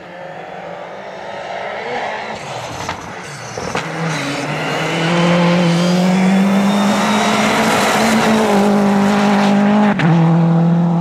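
Rally car's engine on a gravel stage, growing steadily louder as it approaches, then held at high revs with a steady note, with a brief break near the end.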